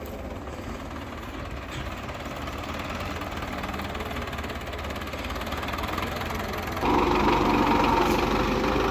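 Belarus tractor's diesel engine running steadily as it drives a wheat thresher. About seven seconds in the sound turns suddenly louder and closer, with the tractor's engine to the fore.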